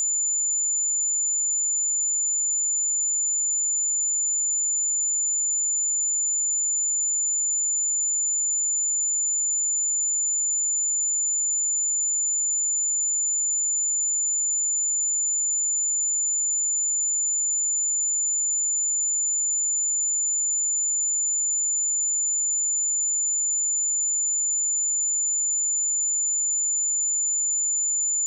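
A pure 7046 Hz sine-wave test tone, a single high-pitched steady whistle with no change in pitch or level.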